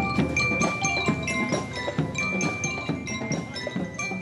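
Marching band playing: bell lyres ring out a melody over steady drum strokes, with the sound starting to fade near the end.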